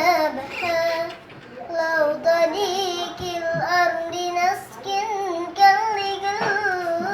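A child singing solo without accompaniment, holding long notes that waver in pitch, with short breaths between phrases.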